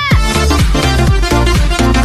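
Upbeat electronic background music with a steady beat and heavy bass.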